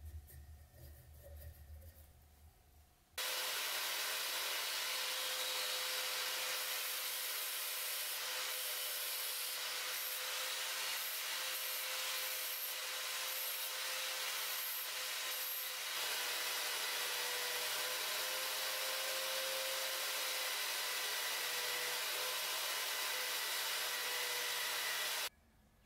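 Power-tool motor spinning a small brass fitting in a chuck, with a steady whine and the hiss of abrasive against metal as the piece is ground and then hand-sanded. It starts suddenly about three seconds in and stops abruptly just before the end.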